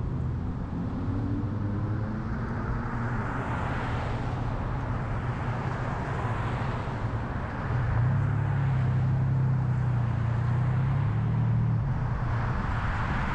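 Car driving with steady engine drone and road noise. The engine's low hum grows louder about eight seconds in and eases back shortly before the end.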